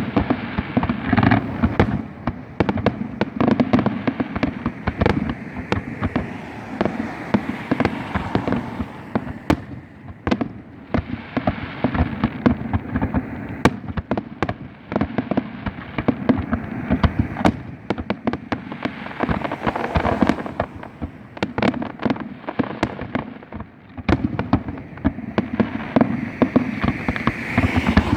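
Fireworks display: a dense, continuous barrage of sharp bangs and crackling bursts, many overlapping, with no break.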